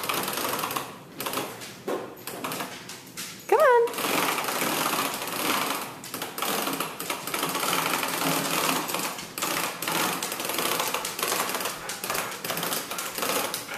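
Plastic wheels of a Chicco baby push walker rolling and rattling over a tile floor as it is pushed along, a dense, rapid clatter from about four seconds in. A short rising voice call comes just before the clatter starts.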